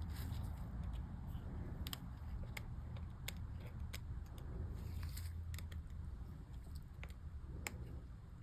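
Faint, scattered small clicks and taps of a MacBook keycap and its clip being handled and pressed into place on the keyboard, over a low steady hum.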